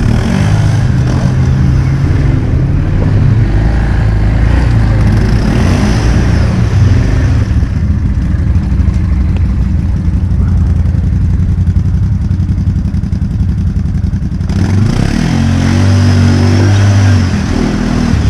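ATV engine running loud and close, its engine speed rising and falling with the throttle, with a steadier stretch in the middle and a change in pitch near the end.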